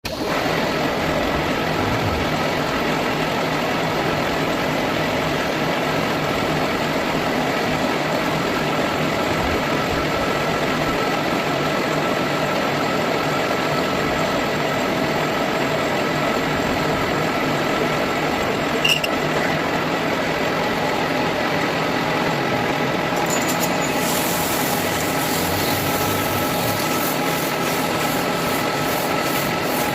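A machine running steadily, an even mechanical noise with a few held tones through it, and one sharp click a little past the middle.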